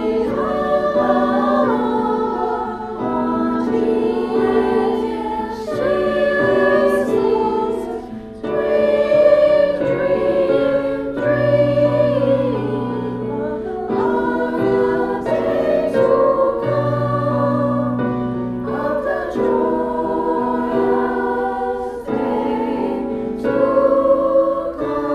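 A choir singing, several voices in harmony holding long sustained notes.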